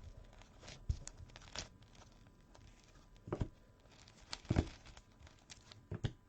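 Trading cards being handled and laid down on a table: a few short taps and rustles at irregular intervals.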